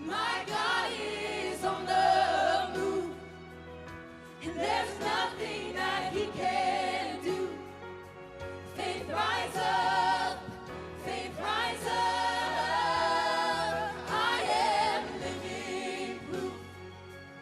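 Worship band and singers performing a contemporary gospel song, with vocal phrases rising and falling over sustained keyboard and bass.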